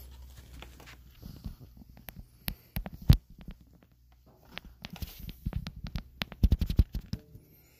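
Scattered knocks and clicks of something being handled, the sharpest about three seconds in and a quick run of them about six and a half seconds in.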